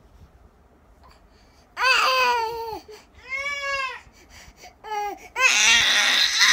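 A baby babbling and squealing in a string of high-pitched calls, starting about two seconds in. One call rises and falls, and a louder, harsher squeal comes near the end.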